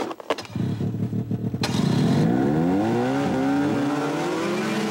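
Two-stroke snowmobile engine firing unevenly, then revving up with a rising pitch that levels off into a steady drone.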